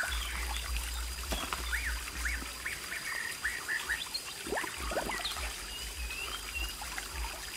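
Birds calling in short, repeated chirps, with a couple of longer falling calls about four and a half seconds in, over a steady high-pitched whine.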